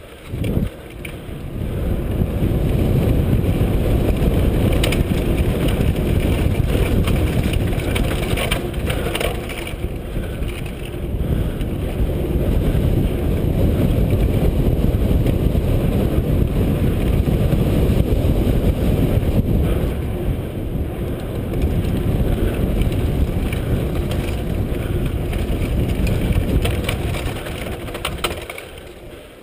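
Wind buffeting an action camera's microphone while a mountain bike rides a bumpy dirt singletrack: a loud, dense low rumble with scattered clicks and rattles from the bike, starting about a second in and easing off near the end.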